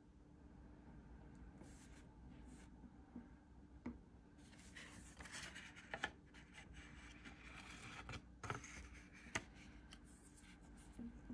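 Faint paper handling on a desk: a sheet of drawing paper sliding and rubbing as it is turned, and a brush marker working on it, with a few light ticks.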